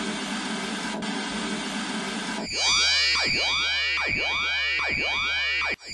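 Television static hiss, then about two and a half seconds in an electronic sound effect cuts in: a steady high tone under repeating sweeps of pitch rising and falling, over a low hum. It breaks off for an instant near the end.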